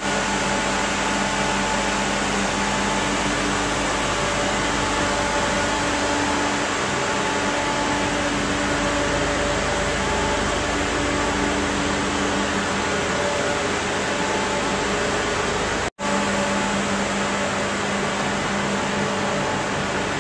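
Steady mechanical hum over an even rushing noise, like air moving through a machine. The sound cuts out completely for a moment about three quarters of the way through, then resumes unchanged.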